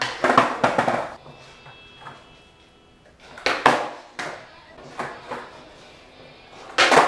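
Skateboard on a smooth concrete floor: sharp clacks and slaps of the deck and wheels hitting the floor as flatground tricks are popped and landed, in loud bursts near the start, around the middle and just before the end.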